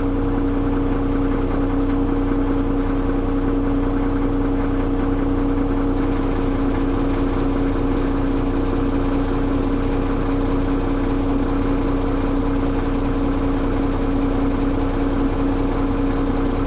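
A heavy vehicle's engine idling, an even drone that holds steady without revving.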